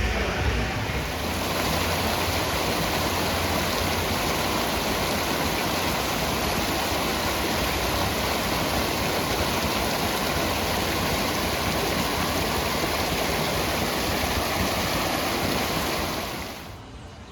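Steady, even rushing noise like flowing water, which cuts off suddenly near the end.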